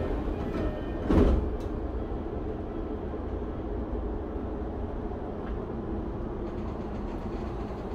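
Electric commuter train's sliding passenger doors closing, shutting with a thud about a second in, then the steady hum and rumble inside the stopped car.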